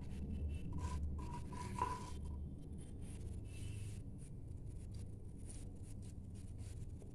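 Spatula scraping the inside of a nonstick kadai, then faint scattered crackles of mustard seeds spluttering as they heat in oil, over a low steady hum.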